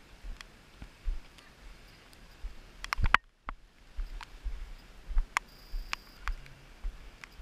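Footsteps on a rocky trail, heard as irregular sharp clicks and dull low thumps through a moving, body-held camera. A cluster of louder knocks comes about three seconds in, followed by a brief dropout.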